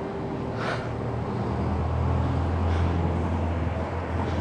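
Low rumble of motor traffic, swelling and easing, with a couple of brief faint hisses.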